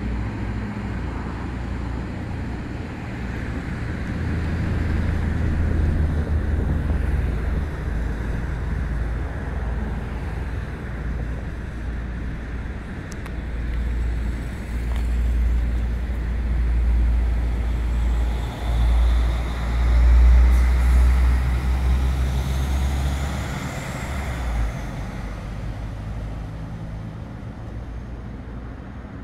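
Deep engine rumble of a diesel passenger railcar on the move, swelling to its loudest about two-thirds of the way through, with a higher whine that rises and then falls, before fading away near the end.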